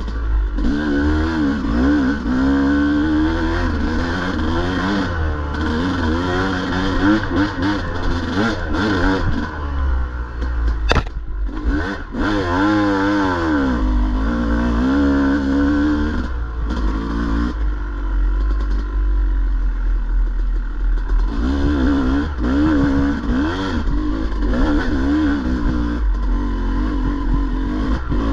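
Dirt bike engine revving up and down with the throttle over rough trail, its pitch rising and falling again and again and easing off for a few seconds about two-thirds of the way through. There is a sharp knock about eleven seconds in.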